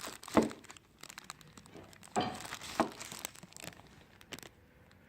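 Rustling and handling noise with a few sharp knocks, the loudest about half a second in and two more a little past the middle.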